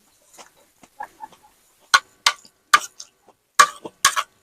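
Close-up crunchy chewing: five or six crisp crunches about half a second apart from about two seconds in, with softer wet mouth sounds before them.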